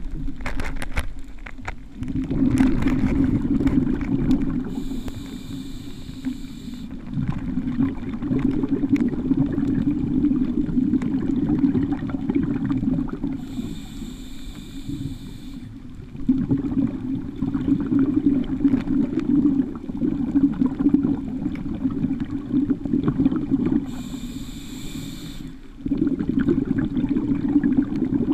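Scuba diver breathing through a regulator underwater: three short hissing inhales about ten seconds apart, each followed by a long stretch of bubbling exhaled air.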